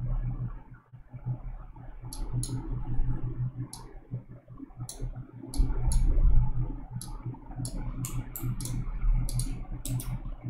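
Computer mouse clicks over a steady low hum. There are a few single clicks at first, and they come faster, some in quick pairs, from about seven seconds in.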